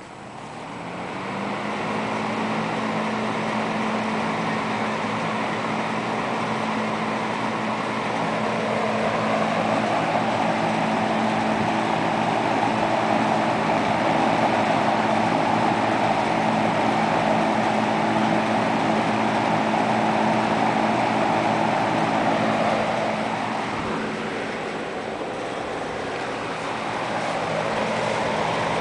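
Wells Royal 3-speed box fan running on its high setting. The motor hum rises in pitch as it spins up over the first couple of seconds, then holds a steady hum under the rush of air. The air noise grows louder for a long stretch in the middle, then eases off near the end.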